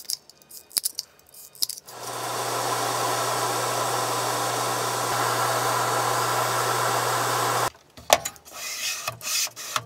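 Handheld heat gun switched on and blowing steadily for about six seconds, a steady rush of air over a low hum, then cut off abruptly, as it is worked over the joined thermistor wires. Small clicks and handling knocks before and after.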